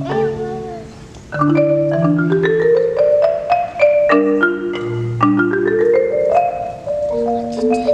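Concert marimba played with mallets: struck, ringing notes in quick runs that climb step by step in pitch, repeated phrase after phrase. The playing softens briefly about a second in, then the runs start again at full strength.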